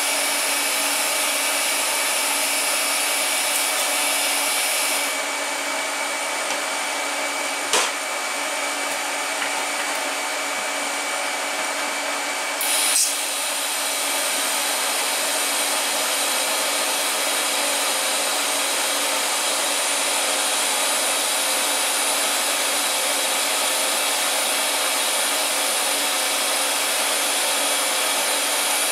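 Steady electric blower hum with a few fixed tones. A sharp click comes about eight seconds in, and a brief louder noise around thirteen seconds.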